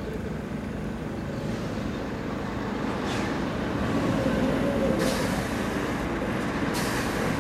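Scania R580 tractor unit's V8 diesel engine running as the heavy truck and its low-bed trailer drive slowly closer, the rumble growing louder about halfway through. Short hisses break in a few times.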